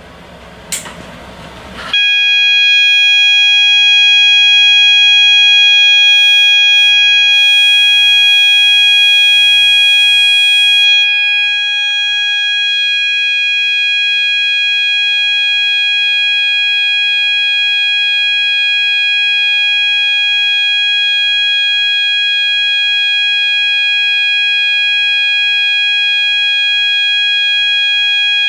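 A power switch clicks, and about two seconds in a System Sensor MASS sounder strobe starts sounding its horn: one loud, steady, continuous electronic tone with no pulsing. A little before halfway through it drops slightly in level and loses some of its top end, then keeps sounding evenly.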